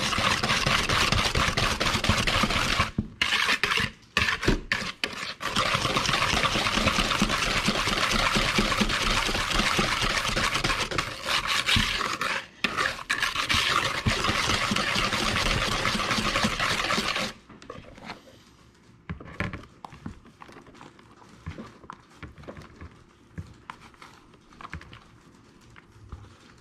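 Wire whisk beating wet cake batter in a mixing bowl: fast, continuous strokes of wire through liquid and against the bowl, with brief pauses. It stops about two-thirds of the way through, leaving only faint handling sounds.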